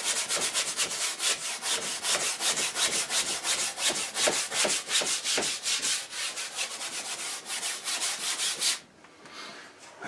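Wide bristle brush scrubbing oil paint onto a stretched canvas in quick back-and-forth strokes, several a second. The paint has white mixed in and is laid on thick and opaque. The scrubbing stops suddenly about nine seconds in.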